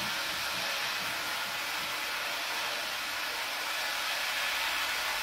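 Water running steadily into a stainless-steel all-in-one brewing vessel, filling it with mash water.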